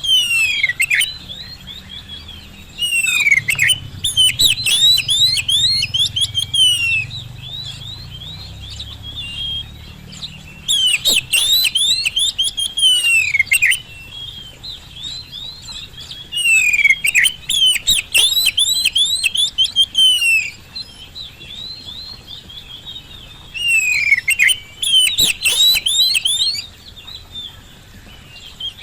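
Oriental magpie-robin (kacer) singing vigorously: loud bursts of rapid, sweeping high notes every few seconds, with softer continuous twittering between them.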